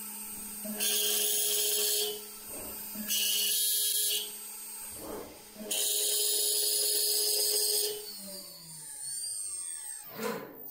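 The 5.5 kW water-cooled spindle of a 4-axis CNC router milling a bassoon body turned in the rotary chuck. The spindle runs with a steady hum and breaks into a loud, high cutting noise three times, each for a second or two, as the end mill bites into the tube. Near the end a whine shifts in pitch.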